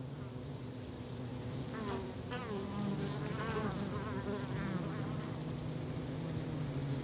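Honeybees humming steadily at the entrances of a wooden beehive.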